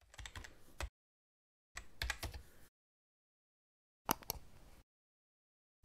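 Three short bursts of sharp clicks and crackles, each under a second long, separated by dead silence.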